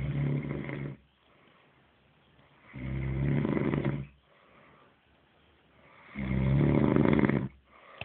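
A man snoring in his sleep: three long, low-pitched snores about every three seconds, with pauses between.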